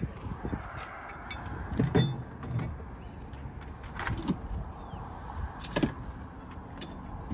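Several sharp metallic clanks and rattles, about two, four and six seconds in, as gear is moved about inside a plastic trailer-tongue toolbox, over a steady low rumble.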